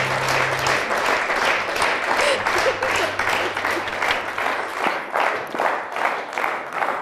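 Studio audience applauding, with the last acoustic guitar chord dying away in the first second. The applause thins toward the end into fewer, more separate claps.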